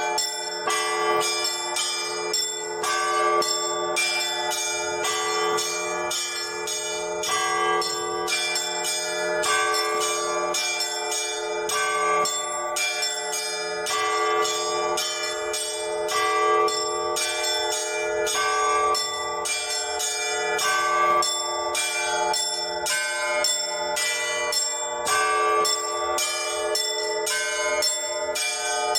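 Orthodox church bells rung by a single bell ringer: a fast, even rhythm of strikes on several smaller bells over the lingering ring of larger ones, the tones overlapping without pause.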